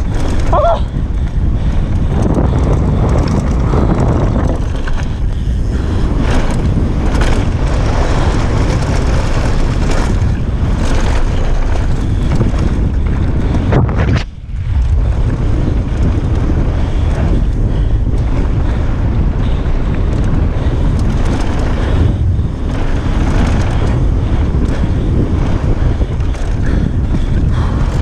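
Wind buffeting the microphone of a bike-mounted action camera at speed, over the rumble of downhill mountain bike tyres on dirt and gravel and the clatter of the bike over bumps. The noise dips briefly about fourteen seconds in.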